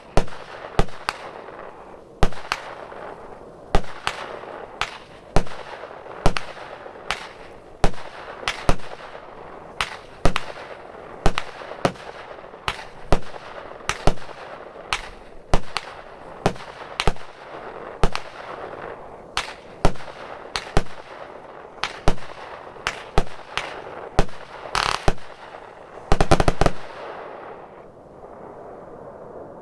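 A 64-shot, 0.8-inch consumer fireworks cake (M13 Phoenix) firing shot after shot, with sharp bangs about every half second to second and a hiss between them. Near the end comes a rapid cluster of bangs as the finale, after which only a fading hiss remains.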